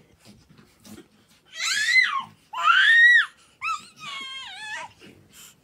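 A baby crying in short, high-pitched whining wails. There are three cries, each rising and falling in pitch, starting a little over a second and a half in.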